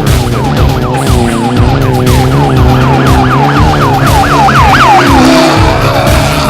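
A siren-like yelp: a rapid run of falling wails, about four a second, growing louder toward the end and then fading out. It plays over steady music.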